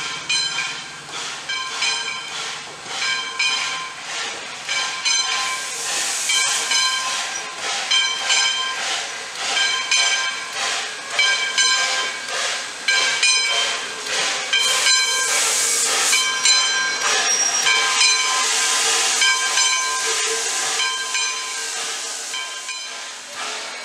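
Steam locomotive bell on a 1907 Baldwin 0-6-0 ringing steadily, about two strokes a second, as the engine moves slowly forward. Steam hisses over it, swelling several times and loudest midway through.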